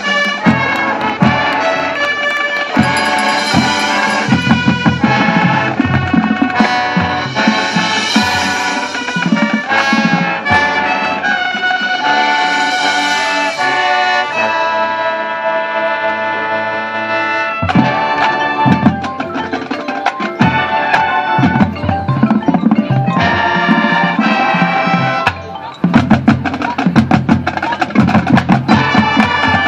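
Marching band playing its field show: brass section over drumline percussion. The brass holds long chords in the middle, and near the end the music drops briefly before the drums come back in loud.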